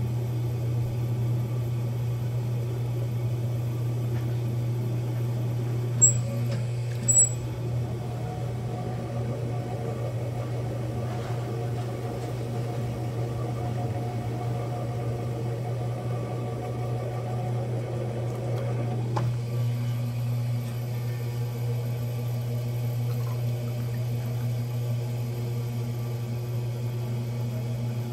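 Electric potter's wheel running with a steady low motor hum as wet clay is thrown into a cup. Two short sharp sounds about six and seven seconds in.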